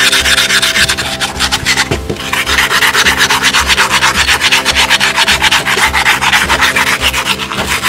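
Coarse sandpaper rubbed by hand over the edge of a red brick in quick back-and-forth strokes, smoothing and rounding edges left rough by the angle grinder. The scraping pauses briefly about two seconds in, then carries on.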